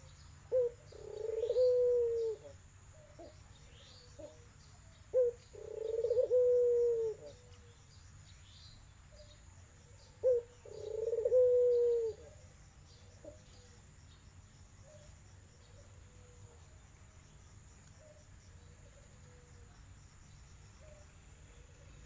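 A tangerine pied Barbary (ringneck) dove cooing three times about five seconds apart, each call a short note followed by a long, slightly falling coo. Fainter coos and small-bird chirps follow for the rest of the time.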